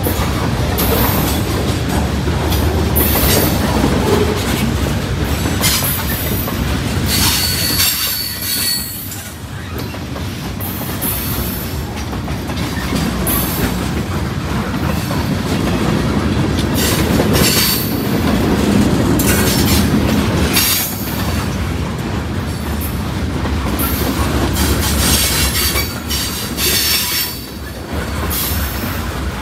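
Freight cars of a long train rolling past close by: a steady rumble of steel wheels on rail with clicking and knocking at the rail joints. A high wheel squeal comes in about a third of the way in and again near the end.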